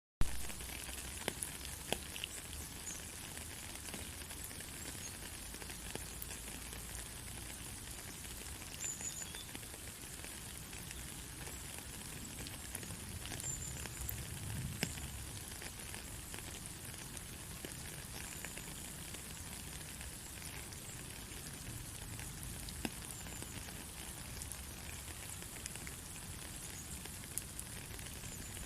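Steady rain, a continuous hiss with many scattered drops ticking and a low rumble underneath.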